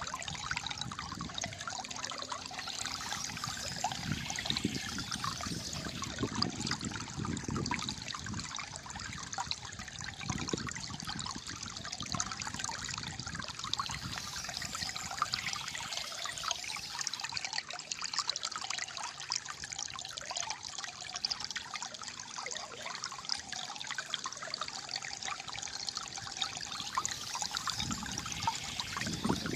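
Calm flowing water trickling and gurgling steadily, with deeper gurgles swelling now and then.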